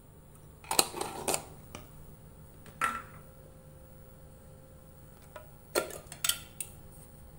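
Five or six short clinks and knocks of kitchen utensils, such as a metal spoon and spice containers, spaced a second or more apart over a faint steady hum.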